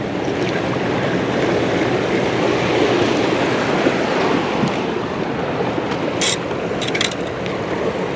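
Steady rush of churning tailwater below a dam, current washing against a concrete wall. A few brief sharp clicks about six to seven seconds in.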